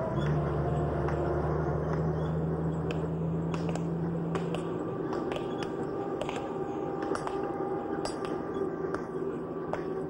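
Dump truck engine running as it drives away, dying out about halfway through. Over it come sharp, ringing clinks of hammers striking stone, irregular and about one or two a second.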